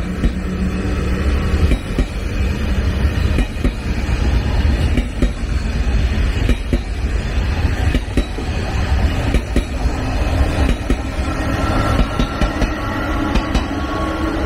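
Thalys TGV PBA high-speed trainset passing close by: a steady deep rumble from its coaches, with a sharp wheel clack over the rail joints about every second and a half. A steady hum joins about twelve seconds in, as the rear power car draws level.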